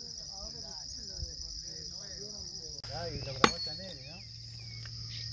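A steady, high-pitched insect chorus, with faint voices under it in the first half and one sharp knock about three and a half seconds in.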